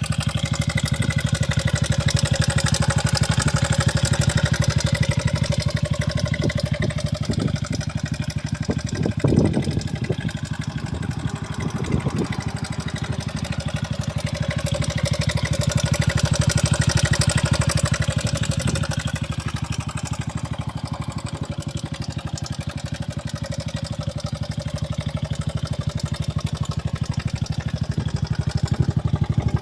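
Honda FTR's single-cylinder four-stroke engine idling steadily, with a few sharper knocks about a third of the way in. The engine carries an abnormal noise that the seller points out.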